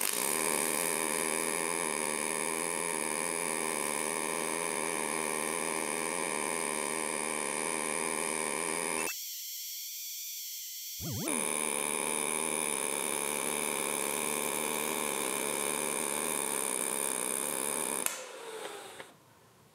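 MIG welding arc from an EWM Picomig 225, laying a fillet weld on 2 mm chrome-nickel sheet with 1 mm chrome-nickel wire under argon with 2.5% CO2: a steady buzzing hiss. It thins out for about two seconds in the middle, then carries on and dies away near the end.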